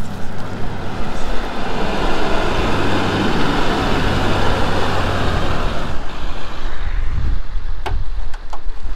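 Pickup-based tow truck driving slowly past on a gravel road: its engine and tyre noise swell over the first few seconds and fade by about six seconds in, over a steady low engine hum. A few sharp clicks come near the end.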